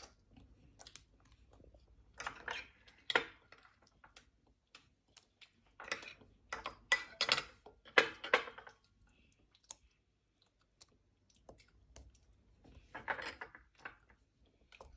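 A spoon clicking and tapping against glass bowls as chopped nuts and fruit are spooned into a bowl of falooda custard. There are three short bursts of quick clicks with near quiet between them, the longest and loudest in the middle.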